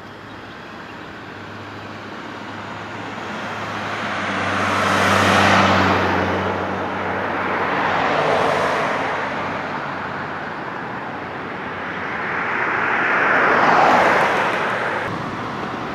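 Cars passing by on a street, three rising and falling rushes of tyre and engine noise, the loudest about five seconds in, the others near eight and fourteen seconds.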